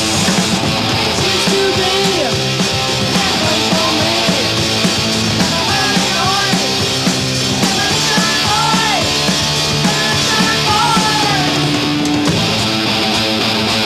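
Heavy rock band playing live, loud and steady, with high sliding notes over the middle stretch.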